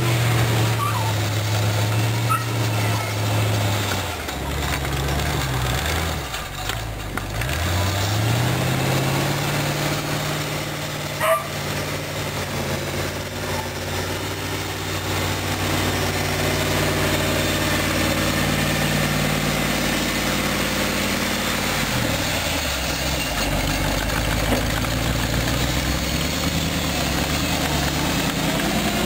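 Chrysler 318 V8 engine of a homemade articulated tractor running, its pitch dropping toward idle and picking up again several times as the tractor slows and pulls away. A single sharp click about eleven seconds in.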